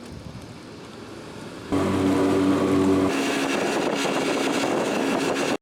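Low steady noise, then a little under two seconds in a motorboat's outboard engine comes in suddenly and loudly with a steady hum over the noise of water and wind. The hum fades back into the noise after about a second and a half, and the sound cuts off abruptly at the end.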